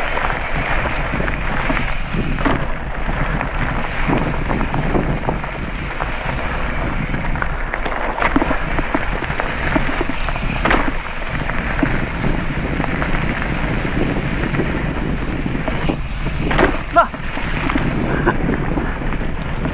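Wind buffeting a helmet-mounted camera's microphone as a mountain bike rolls over a rough dirt track: a steady rumble with scattered knocks and rattles from the bumps.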